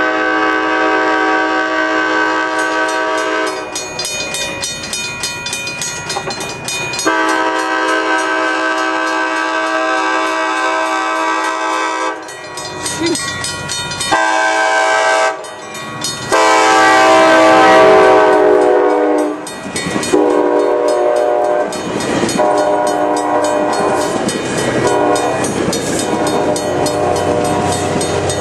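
ACE commuter train's chime horn sounding two long blasts, a short one and a long one, the grade-crossing warning pattern. The last blast drops in pitch as the train passes. Then the steel wheels of the passing bilevel cars rumble and clack on the rails.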